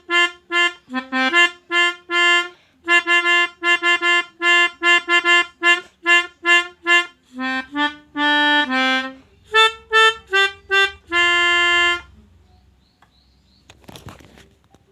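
Telolet horn, the multi-tone musical air horn fitted to Indonesian buses, playing a fast tune of short, reedy honking notes that stops about twelve seconds in. A faint, brief rustling noise follows near the end.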